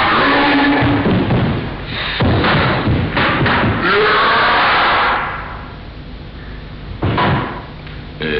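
Heavy thumps and thuds of feet stamping and a body landing on a wooden dojo floor during a naginata throwing technique. The thudding comes in two long bouts in the first half and one short burst near the end.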